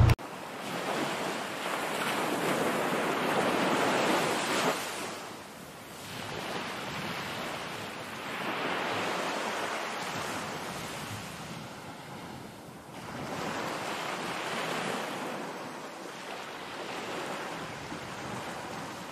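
Surf washing onto a sandy beach: a hiss that swells and fades with each wave, about every four to five seconds.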